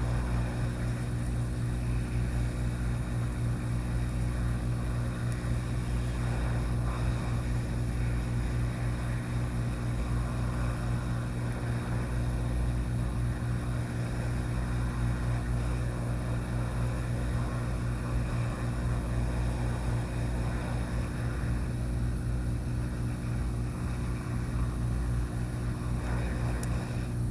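Steady electric fan motor hum, continuous and unchanging, with a low mains hum beneath it.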